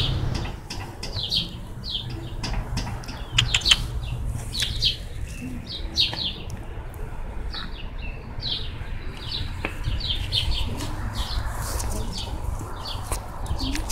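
Small birds chirping, many short high chirps several times a second, over a steady low rumble.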